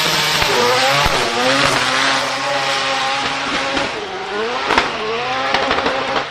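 A performance car's engine revving up and down repeatedly, with a few sharp exhaust pops in the second half.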